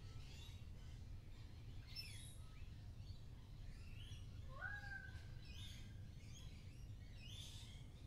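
Many small birds chirping faintly, short calls scattered all through, over a steady low rumble. About halfway through, one longer call rises and then holds its pitch for about half a second.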